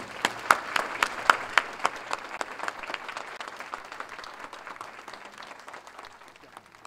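Audience applauding, with loud separate claps in the first couple of seconds, then thinning and dying away.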